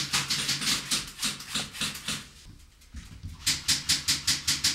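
Airsoft guns firing in a rapid string of sharp pops, about four to six a second. The string breaks off about two seconds in and starts again faster near the end.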